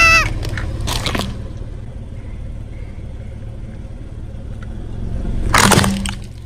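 Car engine running with a steady low rumble, with a short burst of noise about a second in and a louder noisy burst about five and a half seconds in.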